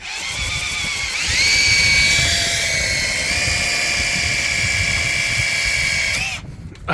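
Power drill spinning a Lint Eater rotary brush inside a clogged dryer vent duct. It spins up to speed with a rising whine about a second in, runs steady over a low rumble, and stops shortly before the end.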